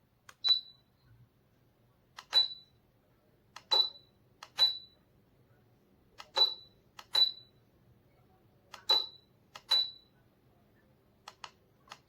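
About eight short, high electronic beeps at irregular intervals, each just after a faint click. They fit a Cecotec EnergySilence Aero 4260 DC ceiling fan's control unit beeping to acknowledge remote-control button presses.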